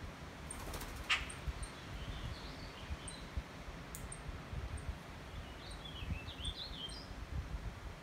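Songbirds chirping in short twittering phrases, about two seconds in and again in a longer run around six seconds, with a single sharp call about a second in, over a low, uneven rumble.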